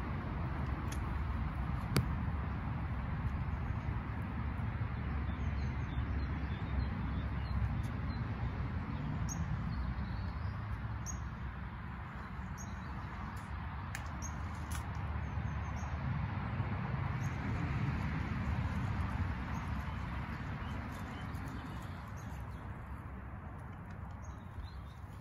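Small birds chirping faintly in short calls over a steady low rumble of wind on the microphone, with one sharp click about two seconds in.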